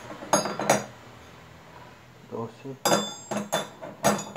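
Metal T-handle socket wrenches clinking against each other as they are handled. There are two sharp ringing clinks near the start and a few softer knocks, then a quick run of clinks from about three seconds in.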